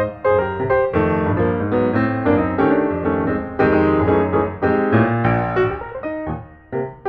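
Background piano music: quick runs of notes over held chords, dipping briefly near the end.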